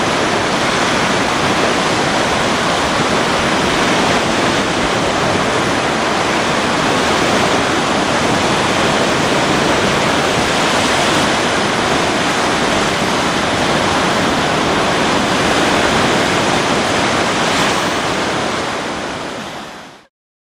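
Steady rush of lake surf breaking on a sandy beach, mixed with wind, fading out near the end.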